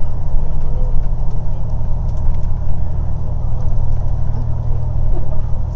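Moving bus heard from inside the cabin: a steady low engine drone and road rumble.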